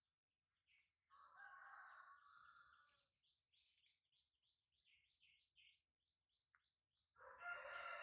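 Faint bird calls: a long pitched call of about two seconds near the start and another near the end, with short high chirps in between.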